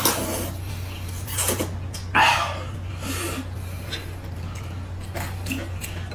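Noodles being slurped from bowls of soup: several short noisy sucking bursts, the loudest about two seconds in, over a steady low hum.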